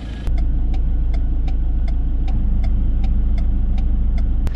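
Vehicle engine idling, heard from inside the cabin as a steady low hum, with a light regular ticking about three times a second.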